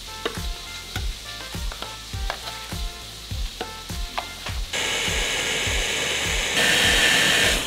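Background music with a steady beat; a little past halfway a countertop blender starts up, puréeing charred vegetables, and runs louder for its last second before stopping.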